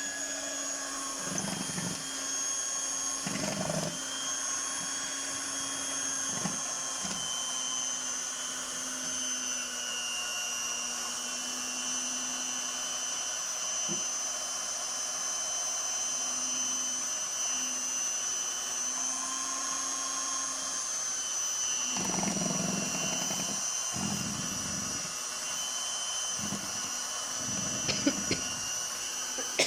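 Electric mixer running steadily with a constant whine while beating pancake batter until there are no lumps. Low thumps are heard now and then, mostly in the last several seconds.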